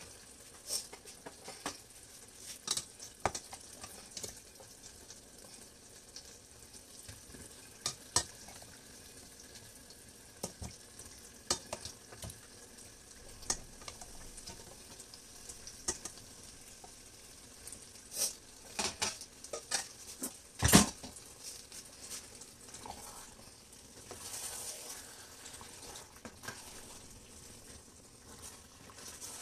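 Ladle and spoon knocking and scraping against stainless steel pots as boiled meat is scooped into a palm oil stew and stirred, over a soft sizzle from the pot. The knocks are scattered, and the loudest comes about two-thirds of the way through.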